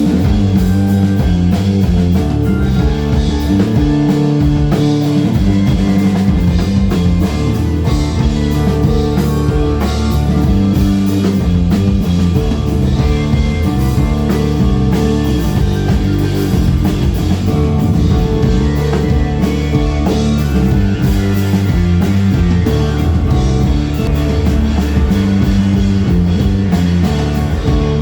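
Live band playing a loud, dense rock piece without a break, with sustained layered pitched parts over a steady beat.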